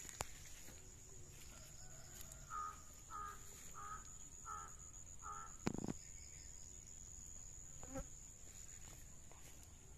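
Steady, high-pitched drone of insects, with a bird calling five times in a row, evenly spaced, through the middle. A single sharp knock comes just past the middle, the loudest sound, and a softer click follows a couple of seconds later.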